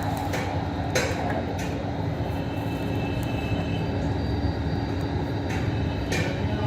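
Steady low mechanical rumble with a constant hum, broken by a few short hisses.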